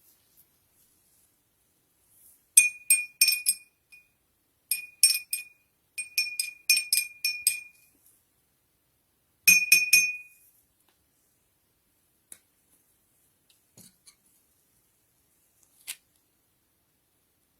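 A spoon clinking against a glass in four quick runs of strikes, each stroke ringing at the same high pitch, as a mixture is stirred. A few faint ticks follow near the end.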